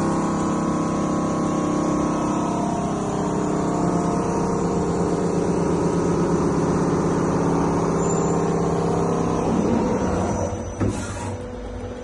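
CNC lathe running while machining a ½-inch reducing bushing: a steady machine hum with several held tones. About ten seconds in it drops to a quieter hum, with a single sharp click shortly after.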